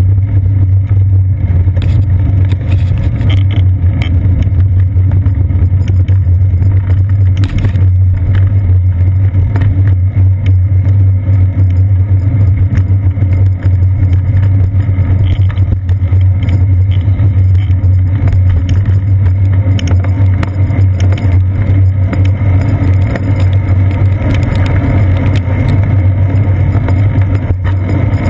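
Steady, loud low rumble of wind and road vibration picked up by a GoPro camera mounted on a bicycle's seat post while riding over wet pavement, with small knocks from bumps in the road.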